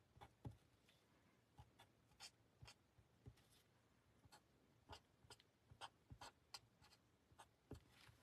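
Faint, scattered ticks and short scratches of a marker tip dabbing colour onto card stock in quick dots and dashes, about a dozen soft touches.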